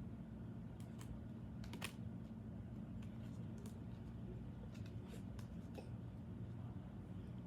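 Tarot cards being handled: a handful of scattered soft clicks and flicks over a steady low hum.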